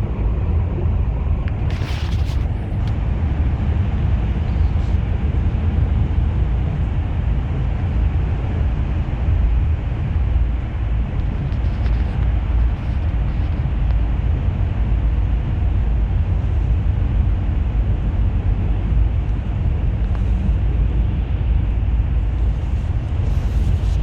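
A moving bus heard from inside the cabin: steady low engine and road rumble with a wash of road noise. A brief sharp rattle comes about two seconds in.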